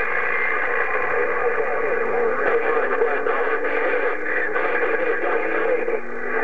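CB radio on channel 6 (27.025 MHz) receiving long-distance skip: thin, garbled audio from distant stations crowding the channel, with a low heterodyne whistle slowly rising in pitch underneath. The signal dips briefly near the end and comes back.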